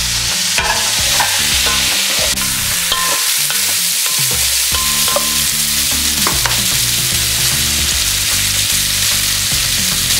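Ground venison, venison sausage and bacon searing in hot fat in an enameled cast-iron Dutch oven: a steady sizzle with a few sharp clicks and pops.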